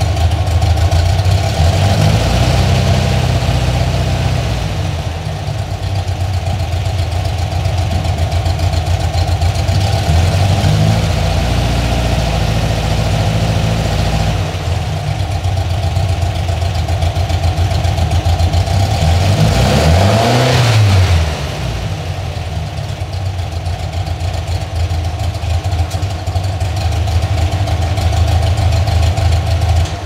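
Air-cooled VW flat-four engine with twin carburettors, running through a Vintage Speed custom Sebring exhaust on a test stand. It idles and is revved by hand: the revs are raised and settle back a few times, with one quick blip up and down about two-thirds of the way through.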